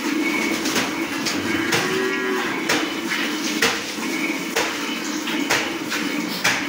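A cow moos once, about two seconds in, over a roughly once-a-second series of short hissing squirts of milk into a steel bucket as the cow is milked by hand.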